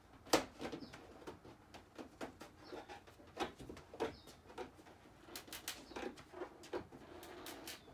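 Irregular clicks, crackles and a few short high squeaks as a fiberglass duckbill spoiler is pried up by hand from a car's trunk lid, its heat-softened adhesive letting go.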